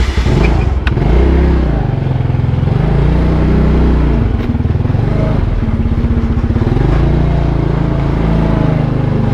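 Small motor scooter engine running while riding at low speed, its pitch rising and falling several times with the throttle.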